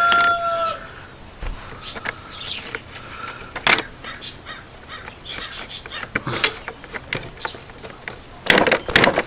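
Plastic clicks and knocks of a Hoover SteamVac SpinScrub's rotating brush being pushed back into its housing and onto its drive gear, with a short squeak at the start and a louder run of knocks near the end. The brush is hard to seat.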